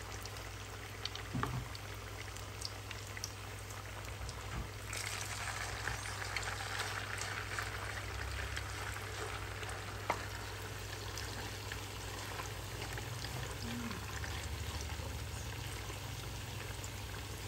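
Pakora batter deep-frying in hot oil in a pan: a steady bubbling sizzle that grows fuller about five seconds in, with a single sharp tick near the ten-second mark.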